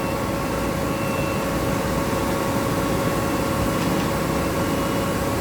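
NZA machine running steadily with its hydraulic unit, a continuous mechanical hum with several held tones over a low rumble.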